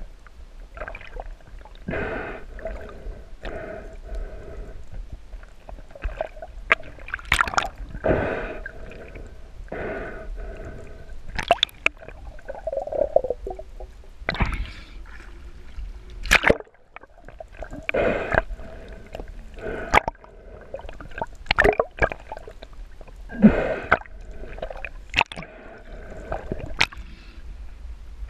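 Seawater sloshing and gurgling around an action camera at the choppy sea surface, in short surges every second or two.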